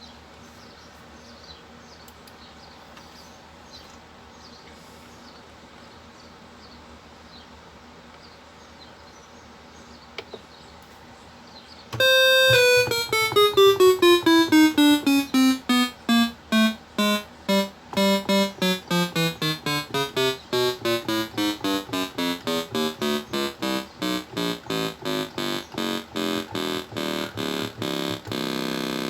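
Faint background hiss, then about twelve seconds in a synthesizer/electric-piano sound played from the Akai MPK249 controller's keys starts: a run of single notes stepping downward one key at a time, about three notes a second, checking that each key of the repaired keyboard triggers a note.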